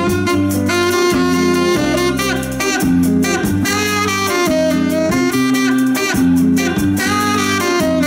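Live band playing an instrumental passage: a saxophone solo over electric guitar, bass guitar and drums.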